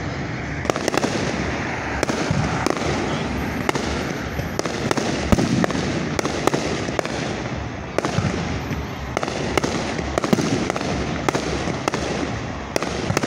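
Fireworks display: aerial shells bursting in an irregular run of sharp bangs, about one or two a second, with the loudest bang about five seconds in. Between the bangs there is a steady noisy background.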